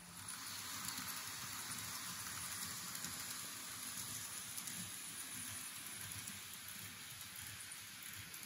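Model Odakyu 50000 VSE Romancecar train running along its track: a steady, hissing rattle of its wheels rolling on the rails. It gets a little louder just after the start.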